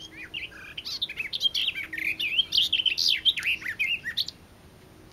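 A warbler singing one fast, rambling warbling phrase of quickly changing notes, which stops about four seconds in. The recordist takes it for a garden warbler, though it sounds livelier and louder than usual for one.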